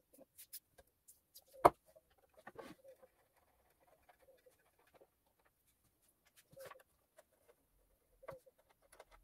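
Hands working on an old bench grinder and small hand tools on a workbench: scattered light clicks and knocks, with one sharp knock about a second and a half in. The grinder's motor is not running.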